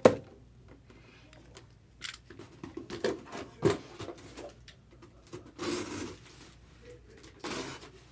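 Cardboard box and packaging being handled: scattered rustles, scrapes and taps, with a sharp click at the start and two longer scraping rustles in the second half.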